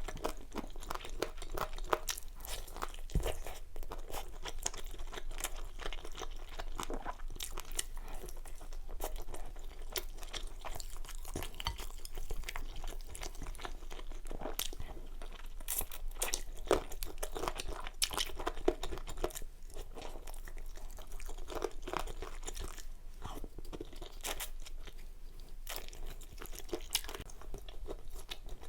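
Close-miked eating sounds: continuous chewing with irregular crunches and wet clicks of food between the teeth.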